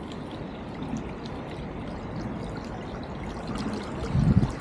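Shallow stream running, a steady rush of flowing water, with a brief low rumble near the end.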